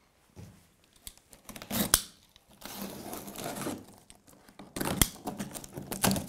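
A utility knife slitting the clear packing tape along the edge of a cardboard box, with rustling of tape and cardboard and a few sharp knocks, the loudest about five seconds in.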